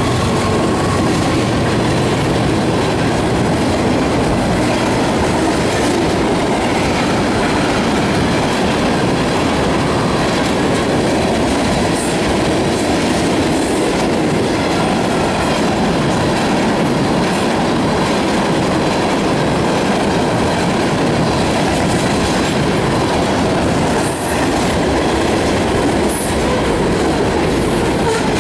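Freight cars of a mixed train, centerbeam flatcars loaded with lumber and tank cars, rolling past close by, with a steady loud noise of steel wheels on rail.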